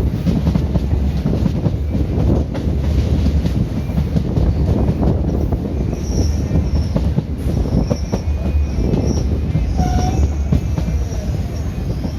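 Indian Railways ICF passenger train running on the rails with a loud, steady rumble. From about halfway through, short high-pitched wheel squeals come and go.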